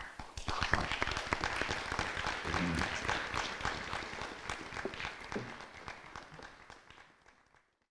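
Audience applauding: many hands clapping, with a few faint voices among it, gradually dying away to silence over the last few seconds.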